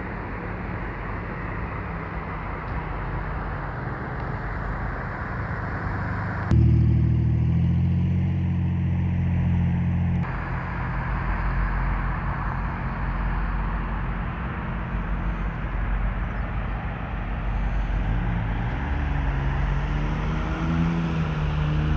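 Heavy engines running with a steady low rumble. About six seconds in, a much louder steady low engine note starts suddenly and drops away about four seconds later; near the end, low engine tones waver up and down.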